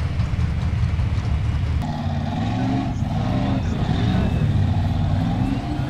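A steady low engine rumble; about two seconds in, a formula off-road buggy's engine revs hard as it climbs a dirt hill, its pitch rising and dipping repeatedly.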